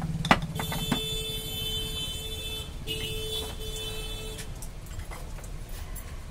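Clinks of steel spice jars and lids being handled, two sharp ones near the start, over a low steady rumble. A high steady tone sounds twice, for about two seconds and then about a second and a half.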